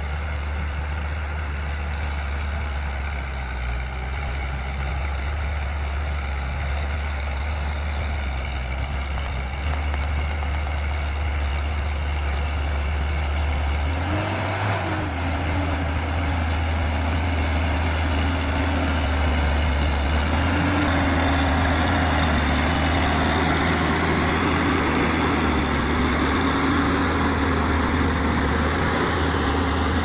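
Diesel engine of a wheeled forestry forwarder running under load as it works through deep mud, a steady low drone. About halfway the engine note dips and climbs again, and it runs louder toward the end.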